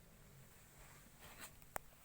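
Near silence with a faint scratchy rustle just past the middle and one sharp click near the end.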